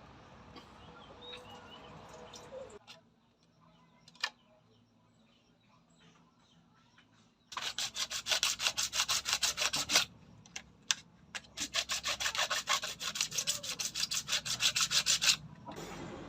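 A hand tool scraping back and forth in quick rasping strokes, about five a second, in two runs with a short pause between.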